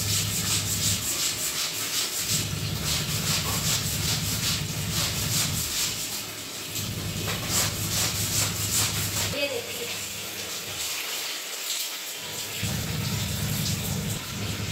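Hands scrubbing a soapy white garment against a wet tiled floor: a quick, rhythmic rubbing that thins out about two-thirds of the way through. Under it a washing machine motor hums in spells of a few seconds, with short pauses between them.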